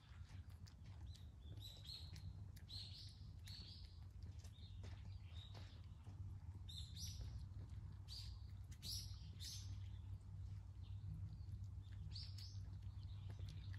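Small birds chirping faintly: a dozen or so short, high chirps in irregular clusters, over a steady low hum.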